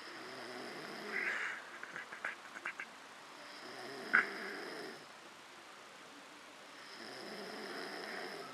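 A sleeper snoring in slow, regular breaths: three raspy snores about three and a half seconds apart, with short clicking puffs after the first.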